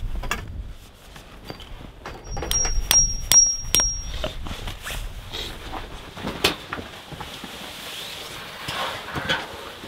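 Steel tent stakes and a wire stake puller clinking, with four quick metallic clinks and a high ringing a few seconds in, amid scattered knocks and rustling of tent canvas.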